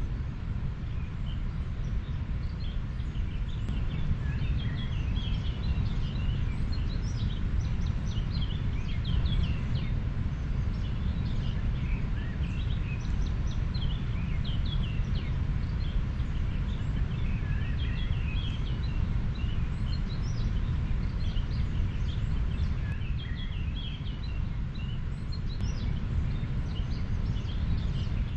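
River water flowing, a steady low rush, with many small birds chirping and whistling in short calls throughout.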